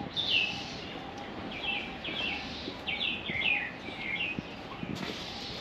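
Birds chirping: a string of short, quick chirps that fall in pitch, repeated over a steady faint outdoor background.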